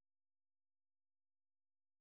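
Silence: the sound track is empty.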